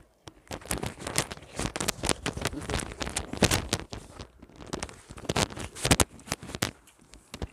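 Two people eating rice and egg curry with their hands: irregular wet clicks and smacks of chewing, with fingers squishing rice and tapping the steel plates.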